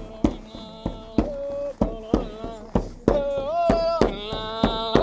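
A man yoiking, an old reindeer herder's yoik, in long held notes that bend and waver, over a Sami frame drum struck with a beater about twice a second.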